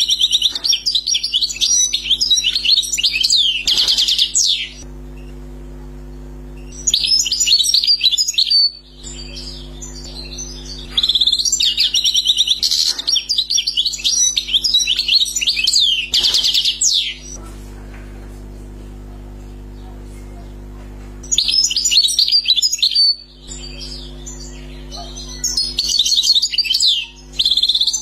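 European goldfinch singing in about five bouts of rapid twittering and trilled notes that sweep up and down. The bouts last from about two to six seconds, with pauses of a few seconds between them, over a steady low hum.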